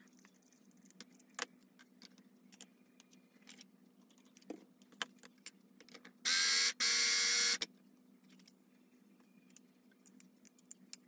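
Small metal clicks and clinks as a rotary cutter's blade, nut and washer are handled and set down, then an electric rotary-blade sharpener runs in two short bursts, about a second and a half in all, a little after the middle, grinding the dull blade.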